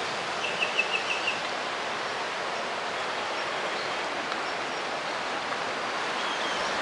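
Steady rush of wind blowing through trees, with a bird giving a quick run of about six high chirps about half a second in.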